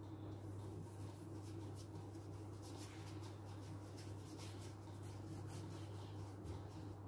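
Paintbrush stroked quickly back and forth across paper, laying on black paint: faint, quick, irregular scratchy swishes over a steady low hum.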